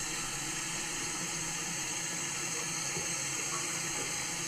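A steady, even hiss like running water, with a faint low hum under it, holding at one level throughout.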